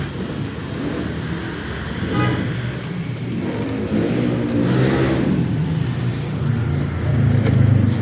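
Road traffic: a motor vehicle's engine running with a low hum, one vehicle passing about halfway through, and the hum getting louder near the end.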